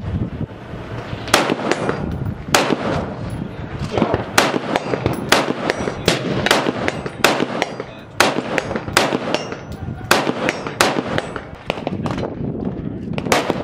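AR-15-style rifle with a muzzle brake fired in quick semi-automatic strings, sharp cracks about one to two a second with brief ringing after each.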